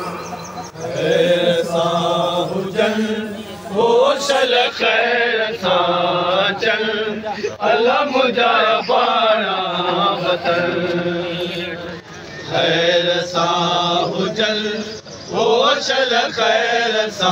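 Men chanting a noha, a Shia Muharram lament, in long melodic phrases with short breaks between them.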